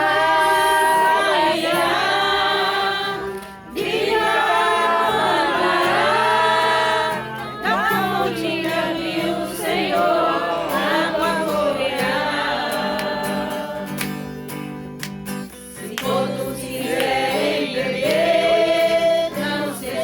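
A group of voices singing a gospel hymn in Portuguese over steady low accompaniment, with short breaks between phrases about four and fifteen seconds in.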